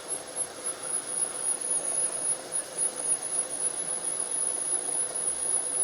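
Milling machine running under power down-feed while reaming a wheel spacer: a quiet, steady hum with a little harmonic sound coming through the spindle shaft and a faint high whine.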